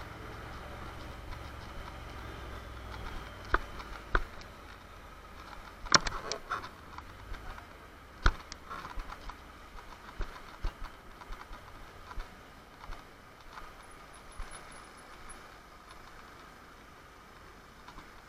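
Honda NC750 motorcycle's parallel-twin engine running low and steady, then cut off about four seconds in. Scattered sharp clicks and knocks follow, the loudest twice a couple of seconds apart.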